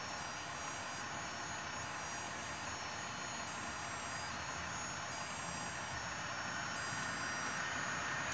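HO-scale model trains running on a Märklin digital layout: a steady rolling hiss with faint high-pitched tones coming and going, growing slightly louder near the end.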